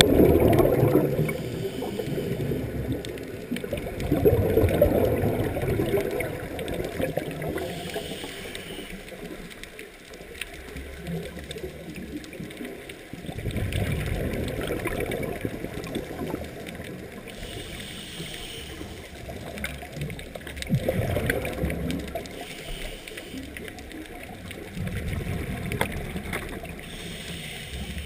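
Scuba regulator breathing heard underwater: bursts of exhaled bubbles gurgling every few seconds, with a shorter, higher hiss of inhalation between them.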